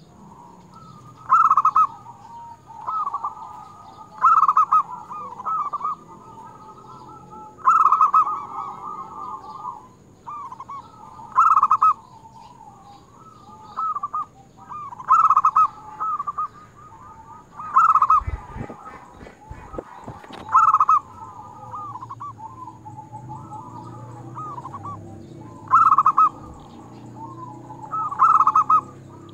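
Zebra dove (perkutut) singing its cooing song: short phrases of quick staccato coos, repeated every few seconds, with softer coos in between.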